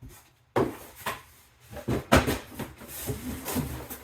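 Cardboard boxes being handled, sliding and scraping against each other, with a few sudden knocks.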